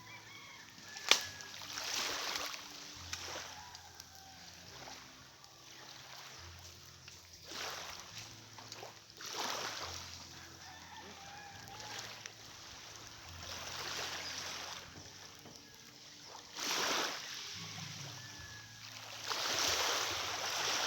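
Waves washing in, swelling and fading every few seconds, with a rooster crowing faintly now and then. There is a sharp click about a second in.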